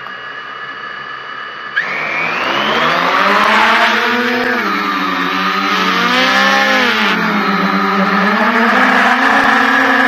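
DJI F550 hexacopter's six brushless motors and propellers running, heard from the camera mounted on its frame: a steady whine that jumps in level and rises in pitch about two seconds in as it throttles up and lifts off, then wavers up and down as it climbs.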